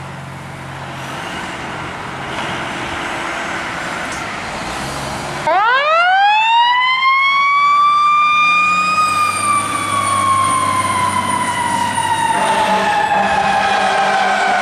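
Fire engine running as it pulls out. About five and a half seconds in, its mechanical siren winds up sharply to a high wail, holds briefly, then slowly winds down. Near the end a second, steadier blaring tone sounds over the falling siren.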